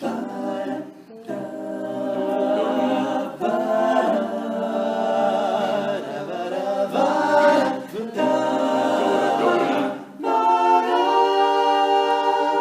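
Male a cappella vocal group singing the introduction of a song: sustained wordless chords in several parts, changing every two to three seconds with brief breaks between them.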